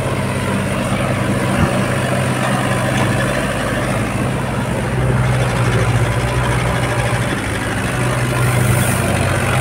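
Diesel engines of a JCB backhoe loader and a farm tractor running steadily close by, an even low engine hum that grows slightly louder about halfway through.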